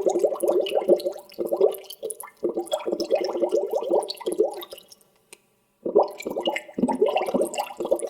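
Water bubbling in bursts, each a run of quick low pops, with brief breaks and a pause of about a second just past halfway.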